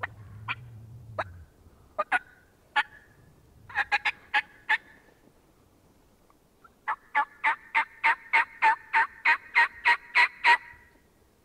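Turkey yelps blown on a mouth (diaphragm) call, imitating a hen: a few single notes, a short group of four, then a run of about a dozen evenly spaced yelps, roughly three a second, getting louder toward the end.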